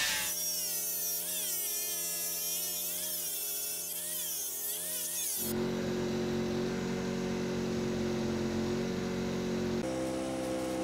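Makita angle grinder with a 36-grit disc grinding a wood offcut into fine sawdust: a motor whine that wavers up and down in pitch as it bites, over a hiss of abrasion. After about five and a half seconds it stops suddenly, leaving a steady hum.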